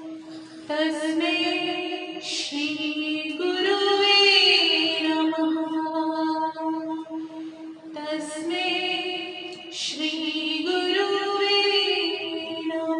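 A woman singing a Ganesh vandana, a devotional song to Lord Ganesha, in two long phrases with sliding, ornamented notes. Under her voice a steady accompaniment note is held, sounding on through the short pause between the phrases.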